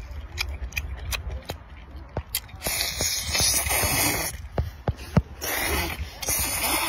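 Wet slurping as a cooked octopus tentacle is sucked into the mouth: two long hissing slurps, each over a second, after a run of small wet mouth clicks.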